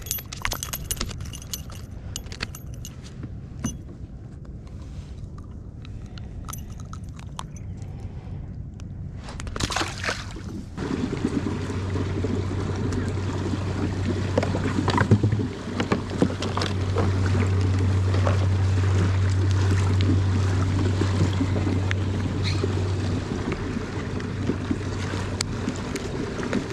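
Light metallic clinking and rattling of a lure and hooks being handled. About eleven seconds in, the kayak gets under way: water rushes along the hull over a steady low hum.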